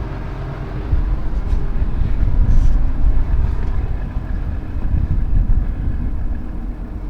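Tractor's diesel engine running at a steady speed, a continuous low drone.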